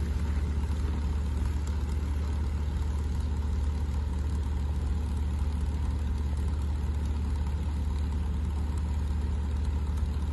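Heavy engine of the crawler tractor hauling the winter freight sleigh train, running steadily with a deep drone.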